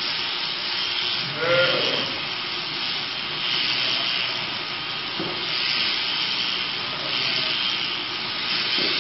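Electric sheep shears running steadily as they cut through the fleece, with a short sheep bleat about a second and a half in.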